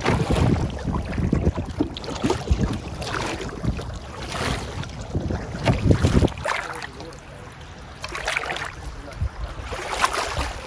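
Canoe paddle strokes swishing through lake water, a surge every second or two, with wind buffeting the microphone.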